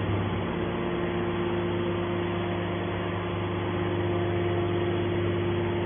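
Hydraulic power unit of a YDF-63 scrap-metal baler running with a steady, even hum.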